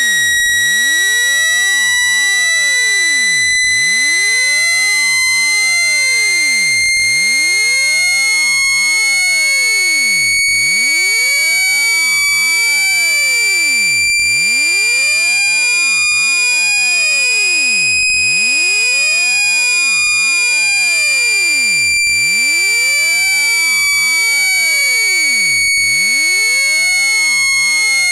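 Speaker-cleaning tone meant to shake water out of a phone speaker: a loud, steady, high-pitched electronic tone with overtones. Its pitch rises slowly for about two-thirds of the way, then eases back down a little. Fainter tones sweep up and down behind it, crossing about every three and a half seconds.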